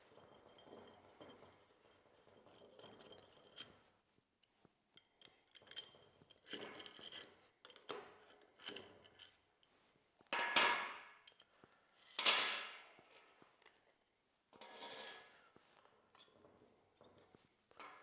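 Small metal clicks and clinks from a 5 mm Allen key working M6 bolts out of a muffler's end cap, then a few louder short scrapes and rattles as the bolts and the exhaust end tip are handled and worked loose, the loudest about ten and twelve seconds in.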